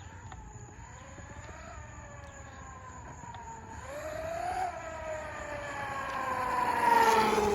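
Traxxas Maxx RC monster truck's brushless motor and drivetrain whining under throttle. There are faint short revs, then a rising rev about four seconds in, then a long whine falling in pitch that is loudest about seven seconds in as the truck goes past.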